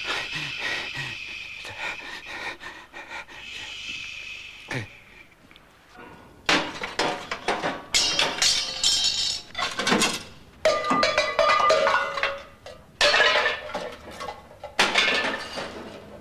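A dying man's laboured, panting breaths for the first few seconds. Then, about six seconds in, come several loud bursts of clattering and knocking as objects are moved and searched through.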